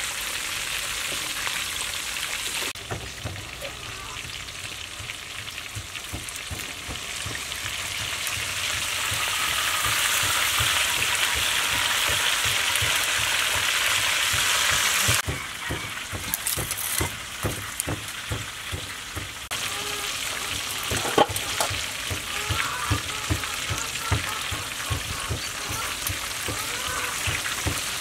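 Whole snakehead fish deep-frying in a wok of hot oil, a steady sizzle that grows louder partway through and then drops suddenly. In the later part, metal tongs and a spatula clink and knock against the fish and the wok.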